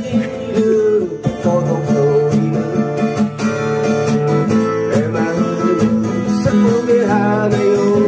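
Acoustic guitar strummed in a steady rhythm, chords changing every second or two.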